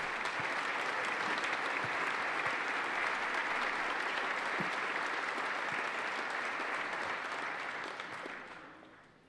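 Audience in a legislative chamber applauding steadily, fading out about eight seconds in.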